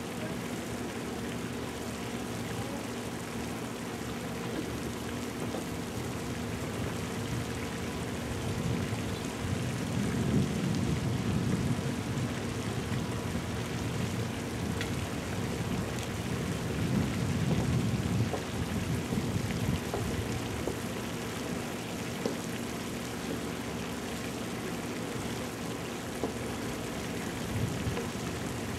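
Wind buffeting the camcorder microphone as a steady rumbling hiss, with stronger gusts about ten and seventeen seconds in, over a faint steady low hum.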